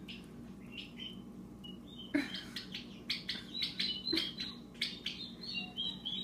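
Turkey poults about two weeks old peeping: short, high chirps, a few at first and then many in quick succession from about two seconds in. A few sharp clicks come among them, the loudest about two seconds in.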